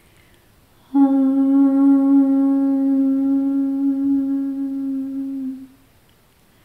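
A woman humming one long, steady low note with a sudden start. It fades out after about four and a half seconds.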